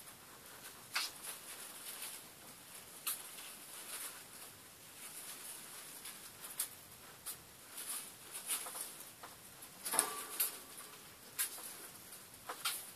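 Pet rats moving about a wire cage: irregular light scratching and clicking as they climb the wire and hammocks. The loudest scrabble comes about ten seconds in.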